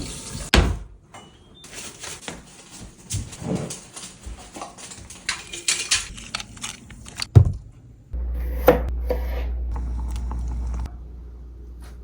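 Rummaging through a refrigerator: food containers and packaging knocking and rustling, with a few sharper thuds. About two-thirds of the way in, a steady low hum sets in.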